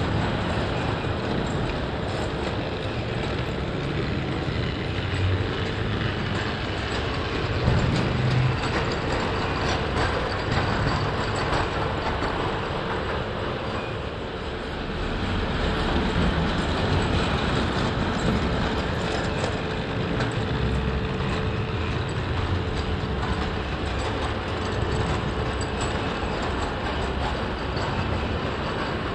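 Märklin tinplate O gauge toy trains running on tinplate track: a continuous metallic rattle and clatter of wheels over the rails, with a steady hum underneath.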